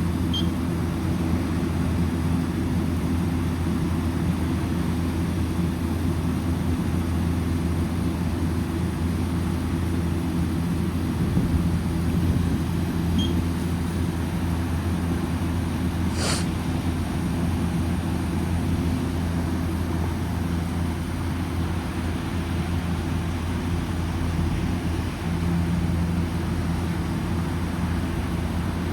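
Orion RKE2200B1-V-G2 inverter chiller running on a test run: a steady machine hum with several low tones over a haze of fan-like noise. A brief sharp high sound cuts in once about halfway through.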